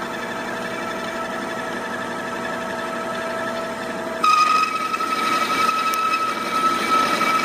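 A power tool runs steadily, cutting a piece of very hard shock-absorber steel being made into a rifle firing pin. About four seconds in, the sound jumps louder and its steady whine moves to a higher pitch.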